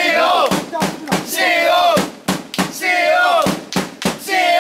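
A small group of football supporters shouting a short chant over and over, each call falling in pitch and coming about every second and a half. A drum keeps a steady beat underneath.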